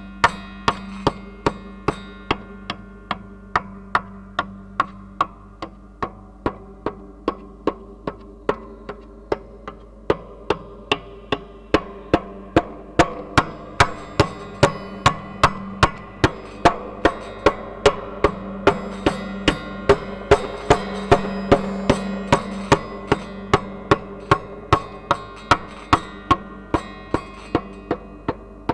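A 'mouse walk' sound effect: a steady run of sharp little taps, about two a second, coming closer together and louder past the middle, over a sustained humming tone.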